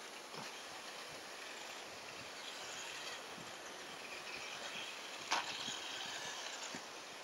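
1:18-scale off-road RC car driving on the track, its faint high motor whine rising and falling over outdoor background noise, with one sharp knock about five seconds in.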